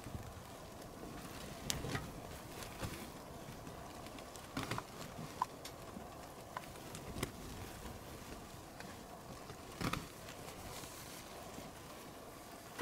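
Faint outdoor ambience with a scattered handful of small, sharp clicks and taps at uneven intervals.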